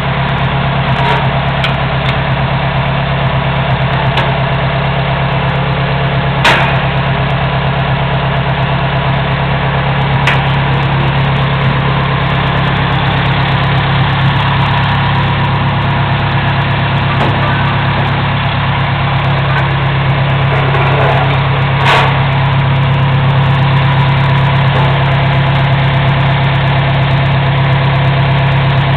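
An engine idling steadily, with a few sharp metal clanks over it, the loudest about six seconds in and another around twenty-two seconds.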